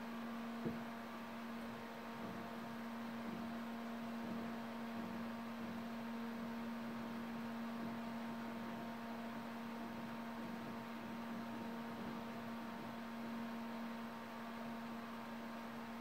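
140 mm PC cooling fan running steadily at low speed: a constant low hum with a few fainter higher tones over a soft airflow hiss.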